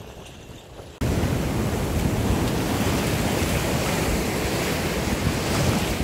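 Ocean surf breaking on a beach, mixed with wind buffeting the phone's microphone. It starts abruptly and loud about a second in, after a quieter first second.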